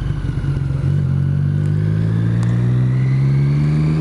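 Triumph motorcycle engine under way, with an uneven, ragged tone for about the first second before it settles into a steady pull whose pitch climbs slowly as the bike accelerates in gear.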